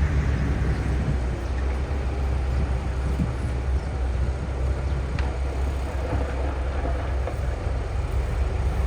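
Heavy earthmoving machinery's diesel engine running steadily under load, a deep continuous rumble, with a faint click about five seconds in.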